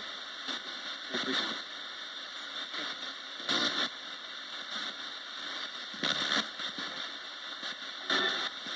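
Roberts radio used as a ghost box, sweeping through the band: steady static hiss broken four times by short snatches of broadcast sound.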